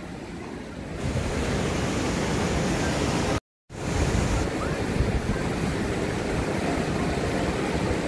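Small waterfall pouring over rock ledges into a shallow pool: a steady rush of splashing water, with wind buffeting the microphone. It gets louder after the first second and cuts out for a moment about three and a half seconds in.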